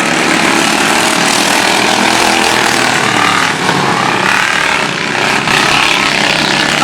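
Several racing lawnmower engines running together on the track, a loud steady drone of overlapping engine notes.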